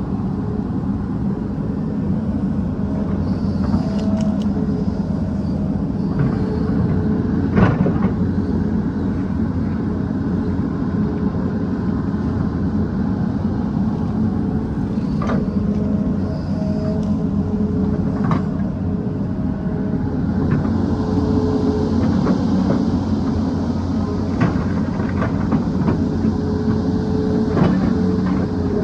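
Excavator's diesel engine running steadily under load, with a tone that comes and goes over the low rumble and occasional sharp knocks, the loudest about eight seconds in.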